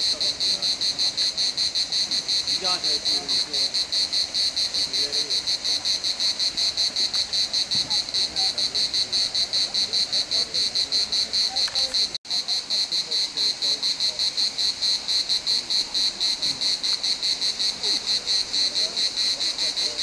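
A chorus of insects singing in the trees: a shrill, high chirping that pulses about five times a second without letting up.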